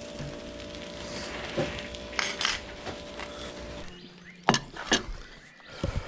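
Metal fork clinking against a plate as fried fish are lifted and moved, over a steady hum. After a cut to quieter surroundings come two sharp knocks, about half a second apart, as the plate is set down on a wooden table.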